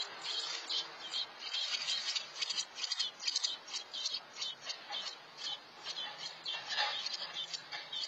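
American robin nestlings begging: a rapid run of short, high-pitched chirps, about three or four a second.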